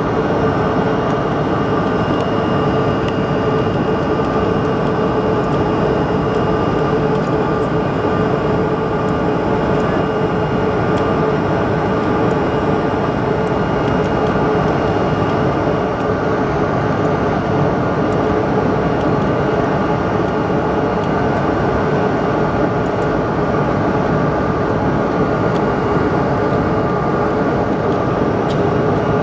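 Cabin noise of a Bombardier CRJ-700 climbing after takeoff: the steady roar of its rear-mounted turbofan engines and rushing air, with several steady whining tones over it.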